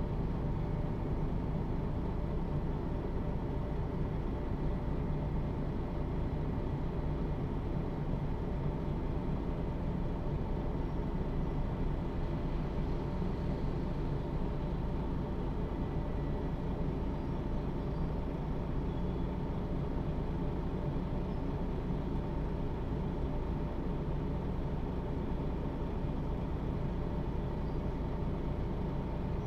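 Diesel engine of a MAN NG 323 articulated city bus running steadily at an even engine speed, heard from inside the bus.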